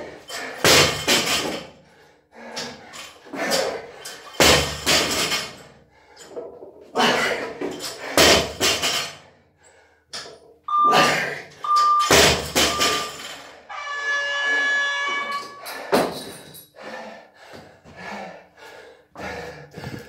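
A workout countdown timer gives three short beeps about a second apart, then a long buzz about two seconds long as it reaches zero, ending the timed round. Around it come heavy breaths and the thuds of a 50 kg barbell being lifted and set down, with a sharp knock just after the buzz.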